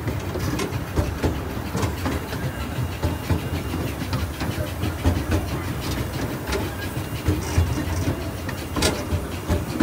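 Amusement-park train rolling along its track, heard from an open passenger car: a steady low rumble with irregular clacks and rattles from the wheels and car, and a sharper knock near the end.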